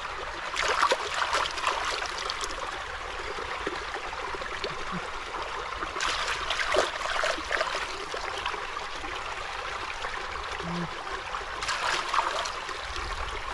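Shallow water trickling, with three bouts of splashing as hands move through it: about half a second in, around six seconds in, and near the end.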